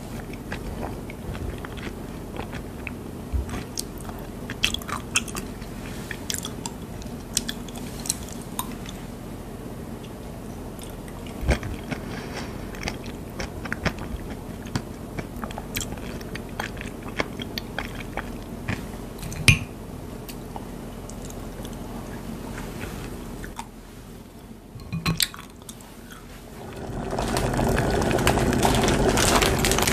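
Close-up eating sounds: chewing a mouthful of peach with crunchy granola, with sharp clicks of cutlery on a porcelain plate now and then. Near the end a steady rushing sound of water boiling in a steel pot comes in and grows louder.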